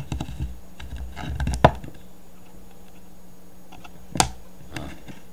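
Magnets and a small metal piece being handled on a table, clicking and knocking: a run of light clicks in the first two seconds ending in one sharp click, then a single sharp click about four seconds in.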